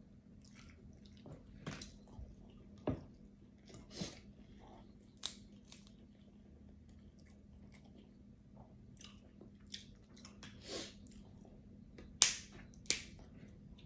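Cooked crab-leg shells being cracked and snapped apart by hand, mixed with close-up chewing: a string of separate sharp cracks, the loudest two near the end. A faint steady low hum runs underneath.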